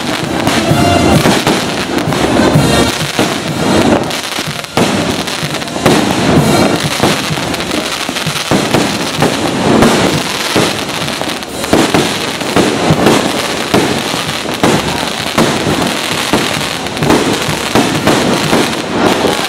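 Firecrackers popping and crackling in quick succession, loud and continuous, with music playing underneath.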